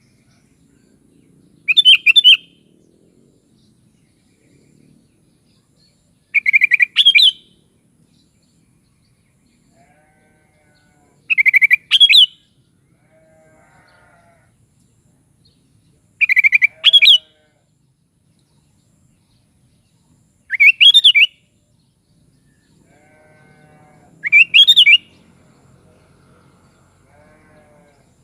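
Sooty-headed bulbul (kutilang) singing: a short, loud, bubbling phrase repeated six times, about every four to five seconds, with faint lower calls in between.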